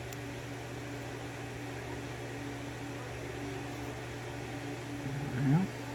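Steady low background hum, with a short murmured voice sound about five seconds in.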